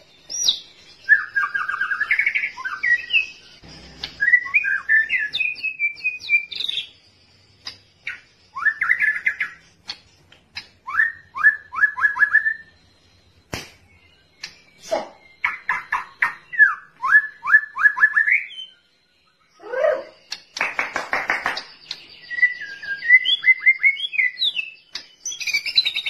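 White-rumped shama (murai batu) singing a varied song: clear whistled phrases mixed with quick runs of short downslurred notes, delivered in bursts of a few seconds with short pauses between.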